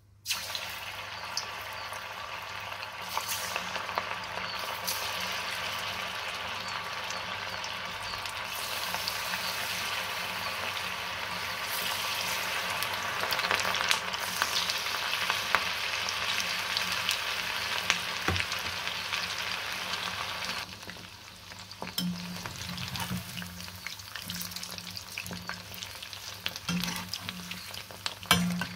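Marinated chicken pieces deep-frying in hot oil in a kadhai: a loud, steady sizzle starts suddenly as the pieces go in and eases about two-thirds of the way through. Near the end a few knocks of a metal slotted spoon turning the pieces sound over the quieter frying.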